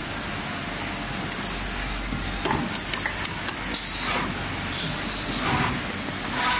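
Automatic template sewing machine with a pneumatic clamp: sharp clicks, then several short bursts of compressed-air hiss as the clamp and template work, over a steady hum of factory machinery.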